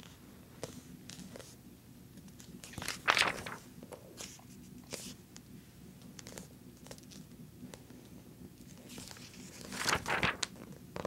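Pages of a thick glossy magazine being handled and turned: soft paper rustles and small clicks, with louder page-turning rustles about three seconds in and again near the end.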